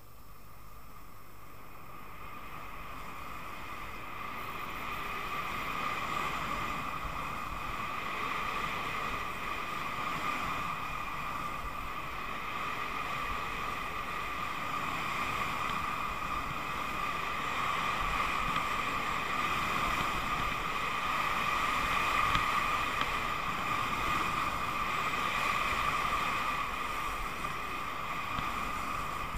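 Steady rush of wind and skis sliding and scraping over groomed snow during a fast downhill ski run, picked up by a camera worn by the skier. It builds over the first five or six seconds as speed picks up, then holds.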